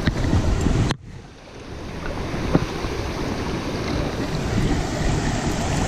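Water of a small stream running, with wind noise on the microphone. The sound drops suddenly about a second in and builds back up over the next second, with one sharp click about two and a half seconds in.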